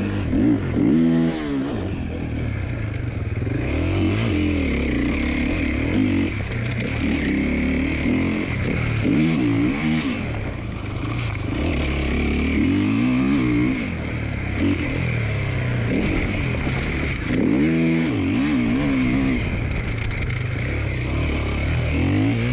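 Husqvarna FE501's big-bore single-cylinder four-stroke engine being ridden hard over a dirt obstacle track, revving up and dropping back again and again as the throttle is opened and closed every second or two.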